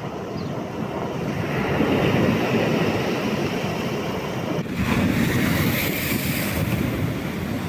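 Stormy sea surf breaking and washing on the shore, swelling about two seconds in and again near five seconds, with wind buffeting the microphone.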